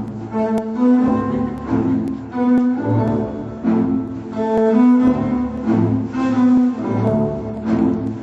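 Instrumental music on low bowed strings: a melody in the cello range that changes note a few times a second, over a lower bass line.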